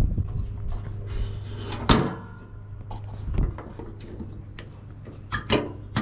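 Massey Ferguson 35 tractor's sheet-metal top hood lid swung shut with one loud metal clank about two seconds in. Small clicks follow near the end as the repaired Dzus-type quarter-turn fastener is pressed in to latch the lid.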